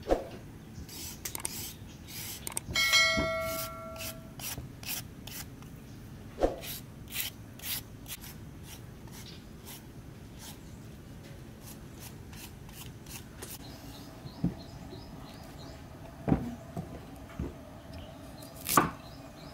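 Quick scraping strokes of a hand vegetable peeler stripping a carrot, with a brief ringing tone about three seconds in. Near the end, a few sharp knocks of a cleaver cutting a white radish on a wooden chopping board.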